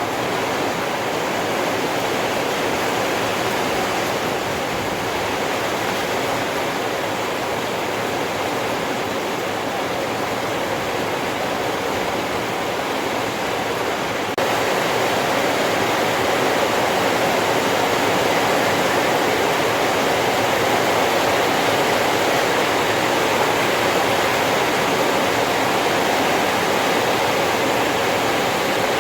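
Heavy rain pouring steadily, a dense even hiss that steps up slightly in loudness about halfway through.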